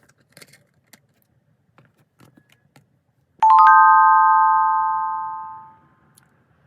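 A few faint light taps, then a bright chime of several notes struck almost together, ringing out and fading away over about two and a half seconds.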